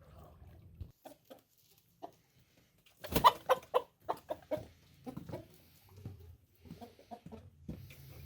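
A chicken clucking: a quick run of short, separate calls starting about three seconds in, loudest at the first, then tapering into scattered softer clucks.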